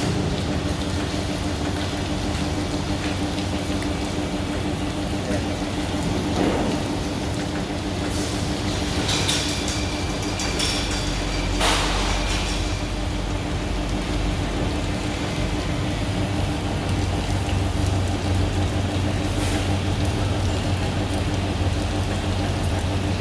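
AC roller seam welding machine running: a steady electrical hum under a noisy hiss, with a few brief crackles about a third to halfway through.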